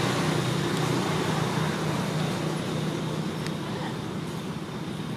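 A motor vehicle's engine running with a steady low hum, slowly fading away.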